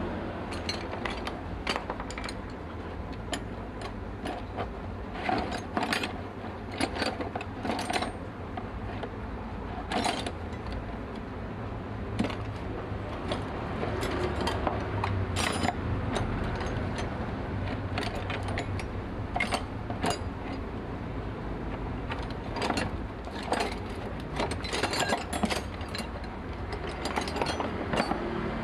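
Hand tools working metal on an outboard motor: irregular clicks, clinks and ratcheting taps, with a steady low hum underneath.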